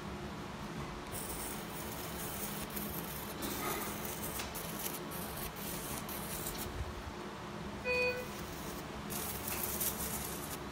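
Operating-room equipment: a steady hum with two stretches of high hissing and one short electronic beep about eight seconds in.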